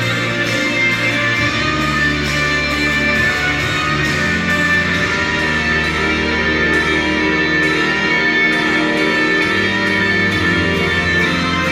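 Instrumental passage of a song's accompaniment: held chords over bass notes that shift every couple of seconds.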